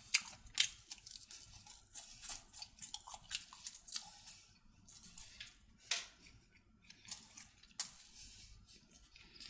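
Close-up chewing of crunchy food: irregular crisp crunches and mouth clicks, with two sharper crunches about six and eight seconds in.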